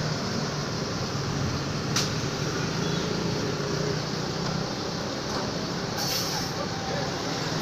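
Bus engine running steadily amid road traffic, with a short hiss of air about six seconds in.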